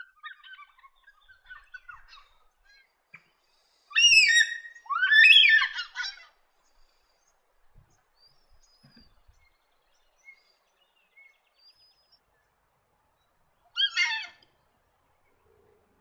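Carnaby's black cockatoos calling: soft chatter in the first few seconds, then two loud, drawn-out calls about four seconds in, and one shorter call near the end.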